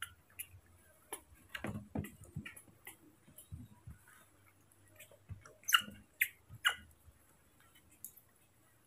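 Small knife cutting papaya over a plastic plate, with scattered light clicks and taps, and a baby monkey handling and eating the fruit pieces. Three sharper clicks come a little past halfway.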